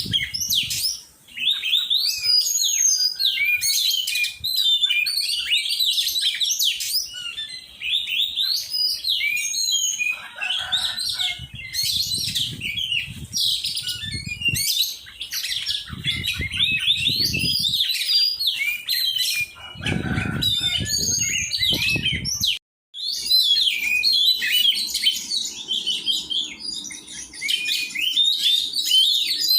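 Oriental magpie-robin (kacer) singing: a fast, unbroken stream of varied chirps, trills and whistles. The song cuts off abruptly for a moment about 23 seconds in, then carries on.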